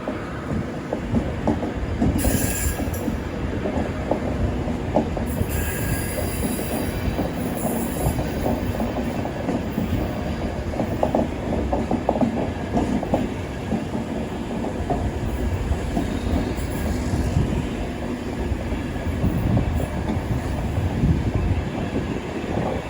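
A train running past on the rails, its wheels clattering rapidly and steadily. High-pitched wheel squeal comes in briefly about two seconds in, and again from about five and a half to eight seconds.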